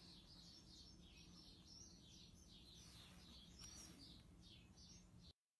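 Faint small-bird chirping, a quick run of short high chirps, over a low steady hum. The sound cuts off abruptly near the end.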